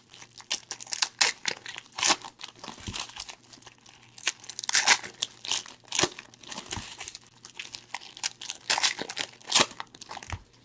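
Plastic foil wrapper of a basketball trading-card pack being torn open and crinkled by hand, in many irregular sharp crackles.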